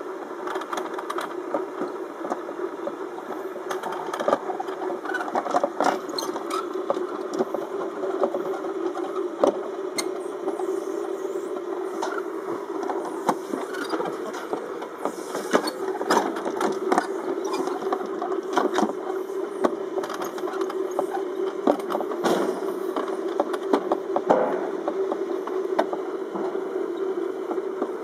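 Summer toboggan sled running down a metal trough track: a steady rolling rumble with frequent sharp clattering knocks.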